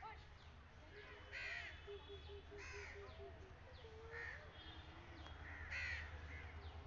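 Crows cawing, faint, about five calls a second or so apart, with a soft run of quick low pips near the middle.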